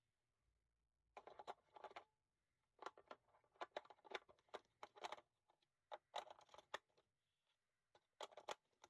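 Packaging and objects being handled on a desk: irregular bursts of rustling, crinkling and light clicks, starting about a second in.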